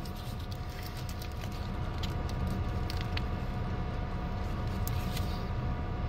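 Car engine idling with the air conditioning running, a steady low hum. A few small crinkles and clicks come from the paper sandwich wrapper as it is handled.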